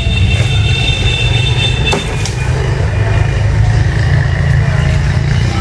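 Gasoline chainsaw running steadily at high revs.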